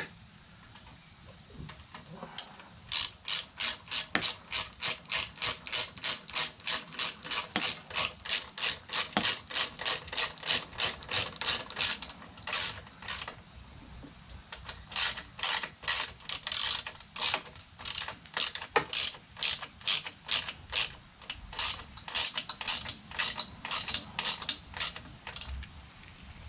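Hand ratchet wrench clicking in quick, even runs of about four clicks a second as the exhaust muffler clamp bolt is tightened down, with a short break about halfway through.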